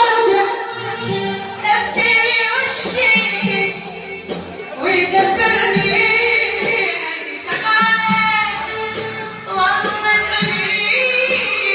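Music: a voice singing an Iraqi mawwal, long ornamented phrases with wavering pitch.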